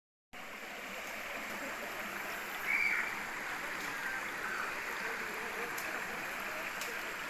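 Steady rushing of a shallow river flowing over rocks, with one short high-pitched sound about three seconds in.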